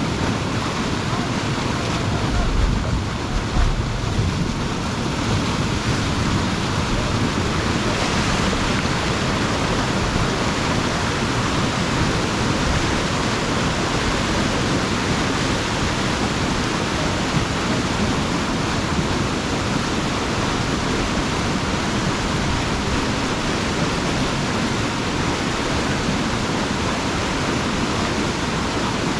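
Steady rush of a large flow of water pouring through a culvert as a beaver pond drains, with wind buffeting the microphone a few seconds in.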